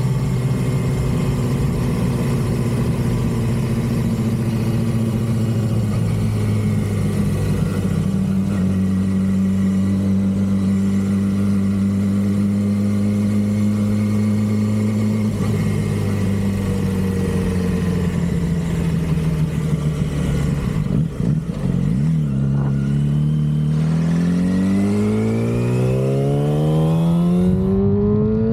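2006 Yamaha R6's stock inline-four engine running at a steady speed for most of the stretch, easing off a little, then revving up steadily as it accelerates over the last few seconds.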